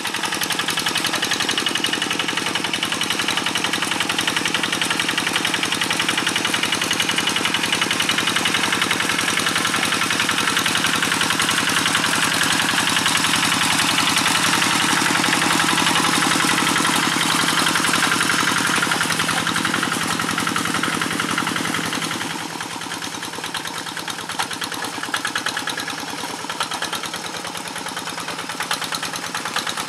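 Kubota RD85 DI-2S single-cylinder diesel of a Quick G1000 Boxer hand tractor running steadily under load as it drags its cage wheels and smoothing board through paddy mud, with an even, fast chug of firing strokes. It turns a little quieter about two-thirds of the way through.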